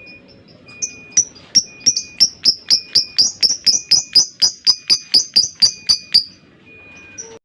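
Lovebird giving a long 'ngekek' chatter: a fast run of about twenty shrill, sharp notes at roughly four a second, lasting about five seconds and then stopping. This long call is the one keepers prize in a fighter lovebird.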